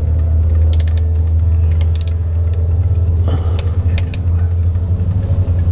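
Short runs of sharp metallic clicks from a click-type torque wrench ratcheting as it tightens the 6R140 transmission valve-body retaining-plate bolts to torque spec. A loud, steady low hum runs under the clicks.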